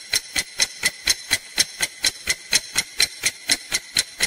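Clock-ticking sound effect, sharp ticks at an even pace of about four a second, marking a countdown timer.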